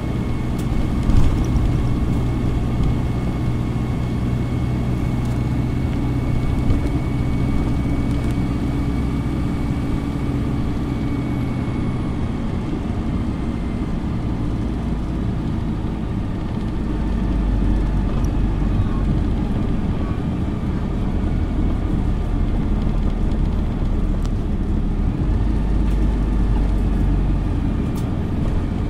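Dennis Dart single-deck bus heard from inside the saloon, its engine and transmission running steadily as it drives along, with road noise. The low engine note grows heavier about two-thirds of the way through.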